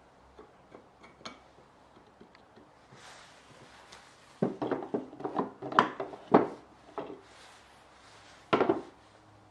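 Woodworking tools handled on a bench: a brief soft rub, then a quick run of irregular wooden knocks and taps for a couple of seconds, and one more knock near the end.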